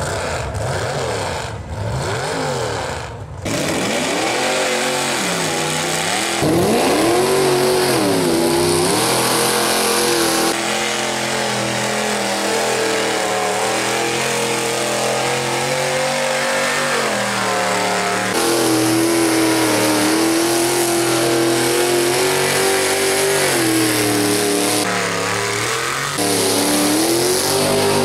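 Square-body Chevrolet mega mud truck's engine revving hard as it rips through a deep mud hole, its pitch swinging up and down again and again as the driver works the throttle.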